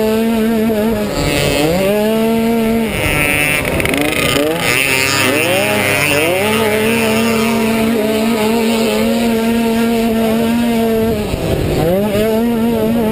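Automatic cross scooter engine at race speed: a high, steady engine note that drops briefly and climbs back about four times as the throttle is eased and reopened.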